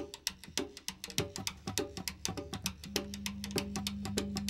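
Music: a quick, steady pattern of light clicking percussion hits, joined about three seconds in by a held low note.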